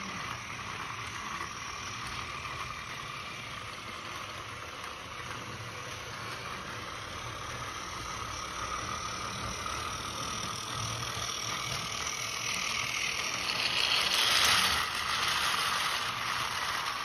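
Battery-powered Plarail C58 toy steam locomotive running on blue plastic track: a steady whir of its small motor and gears with the rattle of plastic wheels, growing louder near the end as the train passes close.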